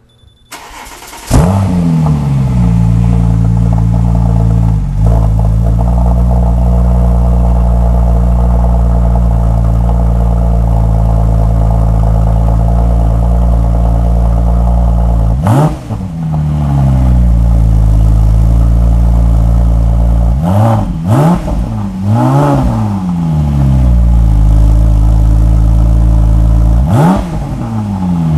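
Porsche 996 Turbo's twin-turbo flat-six with a 3" X Race aftermarket exhaust cold-starting: a brief crank, then it catches with a loud flare and settles into a steady, fast cold idle. The revs are blipped up and back down once about halfway through, three more times a few seconds later, and once near the end.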